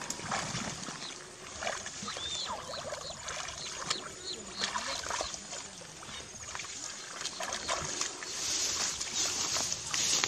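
Feet wading through shallow muddy water, with splashing and sloshing at each step. Short chirps sound here and there in the background, and a louder rustling hiss comes in near the end.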